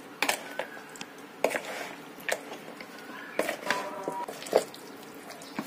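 A metal spoon mixes boiled chicken pieces into a thick egg-and-spice marinade in a plastic bowl. It makes wet squelching with a sharp click of the spoon against the bowl about once a second.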